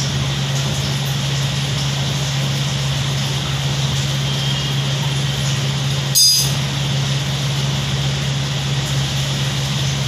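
Steady low mechanical hum throughout. About six seconds in, one short, loud, high-pitched squawk from an Alexandrine parakeet.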